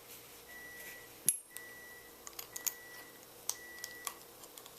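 Small metal clicks and taps of a Sparrows practice lock being handled and taken apart as its retaining pin is removed, with one sharper click about a second in and a run of lighter ticks after it.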